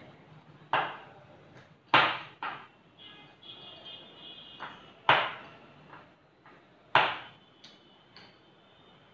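Wire whisk clinking against a ceramic bowl as cake batter is whisked by hand, with soft stirring between the clinks. The clinks come at uneven intervals, the loudest about two, five and seven seconds in.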